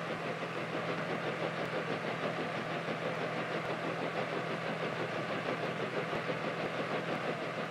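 An engine running steadily, a continuous even drone with a low hum underneath.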